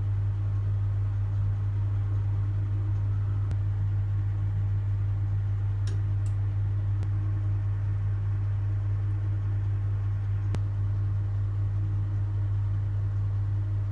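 Steady low machine hum, even in level throughout, with a few faint clicks scattered through it.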